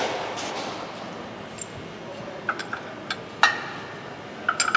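A bolt and steel suspension parts clinking together as a bolt is fitted into the top of a steering knuckle. After a short rustle at the start come a handful of sharp metallic taps, some with a brief ring: the loudest is about three and a half seconds in, and a quick cluster of taps comes near the end.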